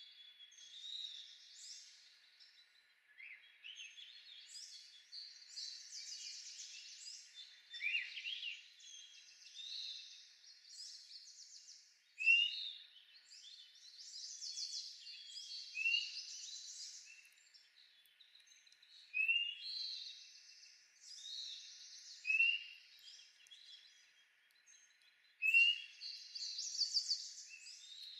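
Songbirds singing, several songs overlapping in a garden chorus, with one bird repeating a short chirped phrase about every three seconds from about halfway through.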